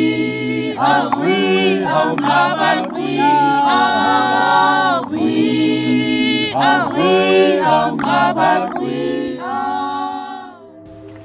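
A group of voices singing together a cappella, in several parts. The singing fades out near the end.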